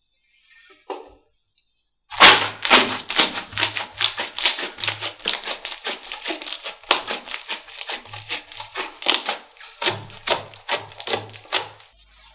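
Slime being squeezed and poked by hand close to the microphone: a rapid run of sticky clicks and pops, several a second. It starts about two seconds in and stops near the end.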